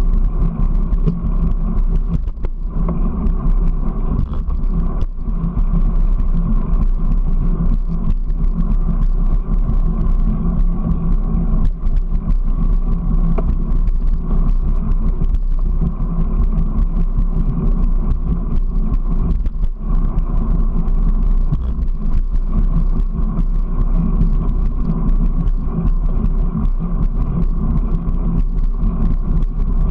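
Steady motor hum with a rumble of wheels on concrete, from a small vehicle riding along a path at an even pace.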